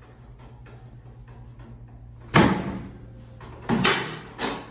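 Segmented chiropractic drop table clacking down three times under thrusts to the lower back and pelvis. The sharp thumps come about two and a half seconds in, then twice more about half a second apart near the end.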